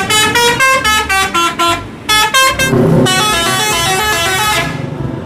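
Tour buses' multi-tone 'telolet' horns playing quick melodies of short stepped notes. The tune breaks off just under three seconds in, then a faster run of notes follows over engine and traffic rumble.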